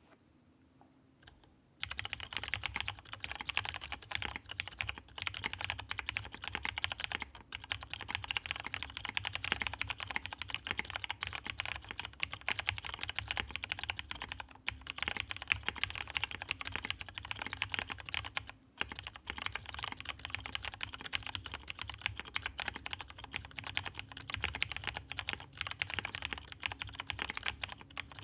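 Continuous typing on a JER J80S mechanical keyboard with lubed Cherry Hyperglide MX Brown tactile switches on a plateless top-mount PCB, under NCR dye-sub keycaps. The typing starts about two seconds in and runs with a few brief pauses.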